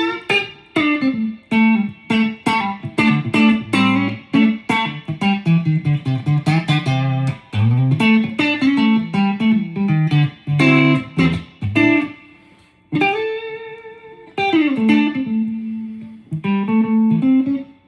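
Electric guitar played with the fingers instead of a pick: a fast blues-rock pentatonic lead line of quickly plucked single notes, with a few held, bent notes and short pauses.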